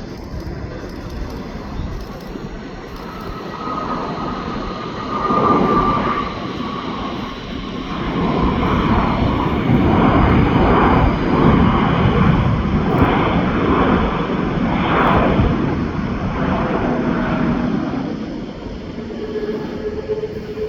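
Jet airliner engines running, with a broad rumble and a faint high whine that grow louder about a third of the way in and ease off near the end.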